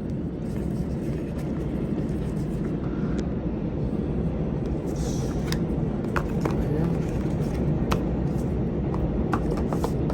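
A steady low rumble, with scattered sharp clicks and a brief rustle from about halfway on, as the dash cam kit's packaging and parts are handled.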